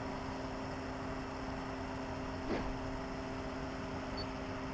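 Steady low hum made of a few fixed tones, with a fainter wavering higher tone above it. A single short falling chirp comes about two and a half seconds in.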